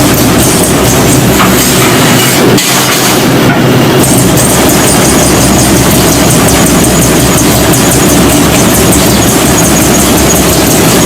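Trumpf T5000 automated sheet-metal machine at work: a loud, rapid, unbroken mechanical clatter.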